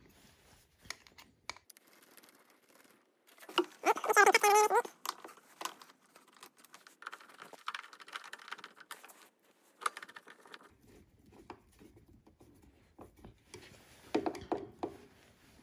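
Light clicks, taps and rustling from hand work on an electrical box. About four seconds in comes a brief, wavering squeaky tone, the loudest thing.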